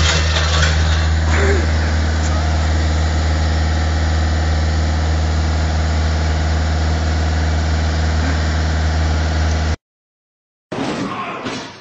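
Engine idling steadily with a deep, even hum, which cuts off suddenly near the end.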